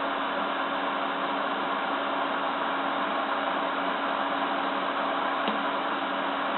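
PC case fan running, a steady rush of air with a low hum, picked up about 10 cm from the fan. A faint tick about five and a half seconds in.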